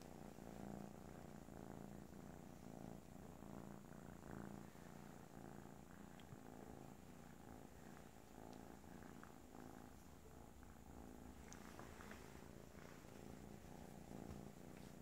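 A tabby kitten purring steadily while being stroked: a low, quiet rumble that pulses with each breath.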